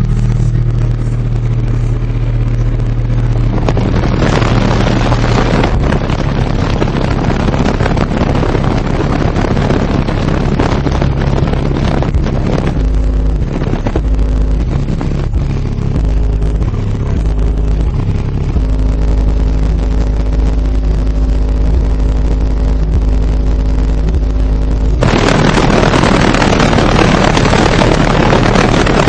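Two Digital Designs 9510 10-inch subwoofers in a ported enclosure tuned to 36 Hz playing very loud deep bass, the low notes stepping between pitches, with a harsh buzzing haze over them that grows louder near the end.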